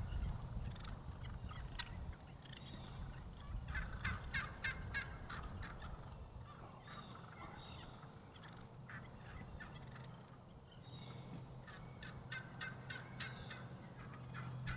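Wild turkey toms gobbling, several rapid rattling gobbles in turn, at the start, around four seconds in, around nine seconds and again near the end.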